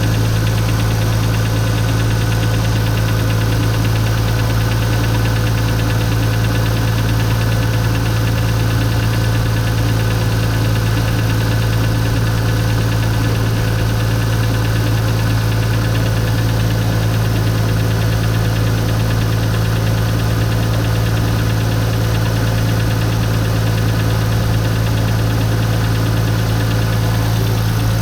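Nissan RB25DET turbocharged straight-six idling steadily, with a fast, even ticking running through its hum.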